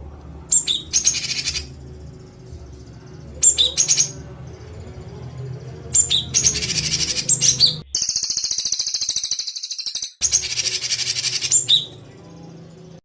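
Songbird singing harsh, rapid high-pitched trills ('tembakan kasar', rough 'shots') in five bursts of one to two seconds, separated by short gaps. The fourth burst is a long, even, fast trill. A faint low hum runs underneath.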